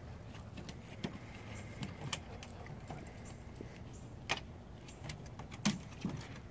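Metal dog collar tags jingling in irregular short clinks, with a few sharper knocks, the loudest about four and five and a half seconds in.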